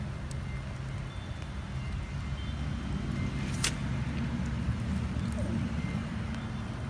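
A steady low motor hum, like an engine running nearby, with one sharp click about halfway through.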